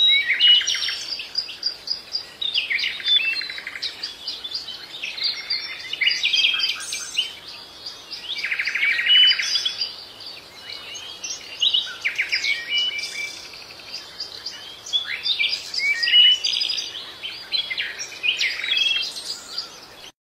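Several small birds chirping and twittering in quick, overlapping calls, with short rapid trills now and then, the busiest about 3 and 9 seconds in.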